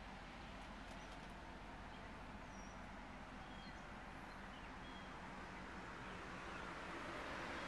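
Faint outdoor ambience: a steady low background rush with a few brief, thin bird chirps in the middle. The background grows slightly louder near the end.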